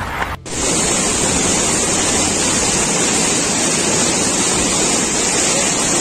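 Rushing water of a fast, muddy flash-flood torrent: a loud, steady noise, starting just after a brief break about half a second in.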